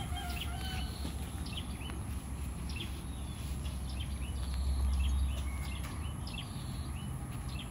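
Outdoor ambience of small birds chirping: many short, quick calls scattered throughout. A steady high whine runs beneath them, and a low rumble swells briefly about five seconds in.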